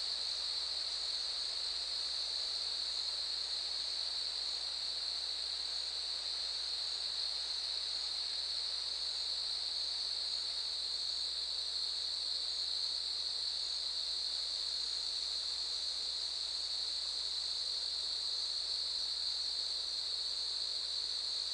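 Cicadas singing at night in a steady, unbroken chorus: one even, high buzz that never lets up, with faint repeated chirps above it.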